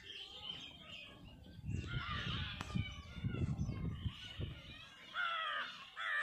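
Crows cawing in short harsh calls, the loudest pair of calls about five seconds in, over a low rumble and a single sharp click.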